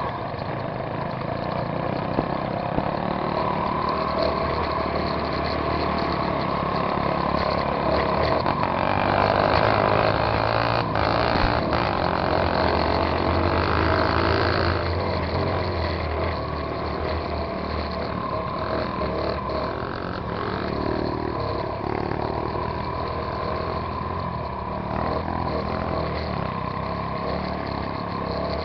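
Dirt bike engine running while riding a rough forest trail, louder for several seconds in the middle.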